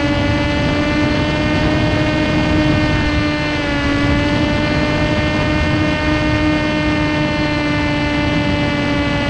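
Electric motor and propeller of a TBS Caipirinha 2 FPV flying wing in cruise flight, a steady whine whose pitch dips slightly a few seconds in, over a constant rush of wind noise.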